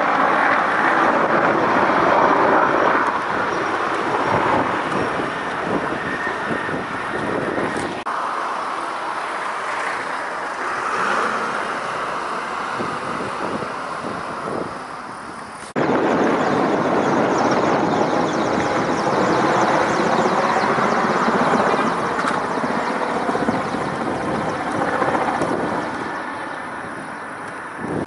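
Firefighting helicopter flying overhead: a steady, loud rotor and engine noise that breaks off abruptly twice, about 8 and 16 seconds in, and comes back each time.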